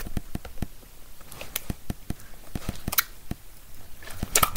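Hands squeezing and kneading a large mixed slime with beads in a plastic tub: a dense run of small wet clicks and pops, with a few louder squelching crackles as air is pressed out.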